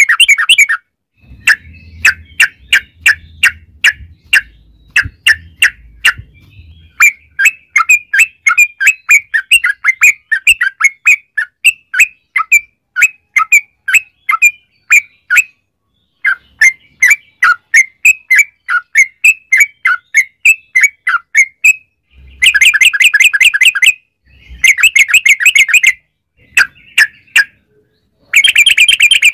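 Yellow-vented bulbul (trucukan) singing long, rapid chattering runs of short clear notes, with denser bursts of song late on.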